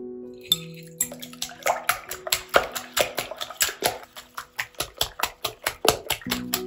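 Music: held notes, joined about a second in by a quick, even beat of sharp clicking percussion, about four strikes a second.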